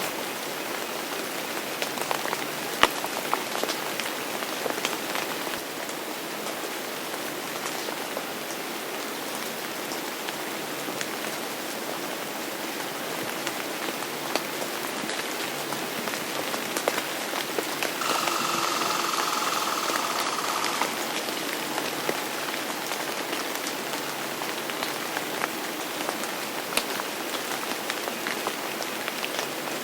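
Steady rain falling, with individual drops ticking sharply on a hard surface. About two-thirds of the way through, a louder stretch of about three seconds carries a steady high tone.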